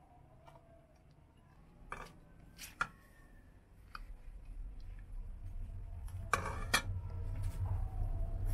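Metal ladle clinking and knocking against metal cooking pots as broth is ladled and the ladle is moved between pots: a few sharp knocks about two seconds in, and a louder cluster of clanks near the end. A low rumble runs under the second half.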